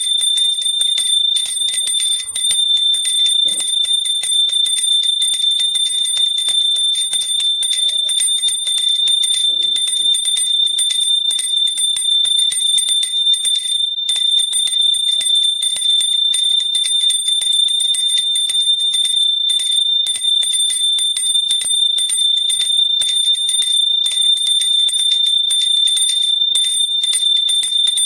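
Small hand bell shaken rapidly and without pause: a steady, bright, high ringing tone with a fast, unbroken run of clapper strikes.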